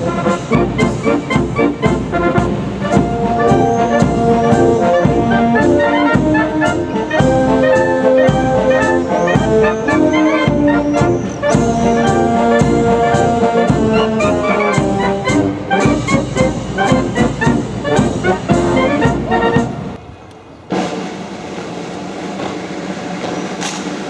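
Military brass band, led by trumpets, playing a ceremonial piece of held, chord-like notes. The music stops abruptly about twenty seconds in, leaving a quieter, steady background sound.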